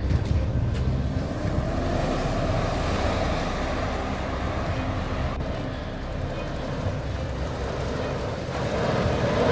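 A 4x4's engine running under load as the vehicle drives through deep snow. It grows louder near the end.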